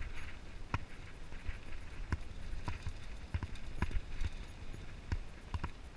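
Mountain bike rattling and clacking as it rolls down a rough dirt trail, with irregular sharp knocks over a low rumble.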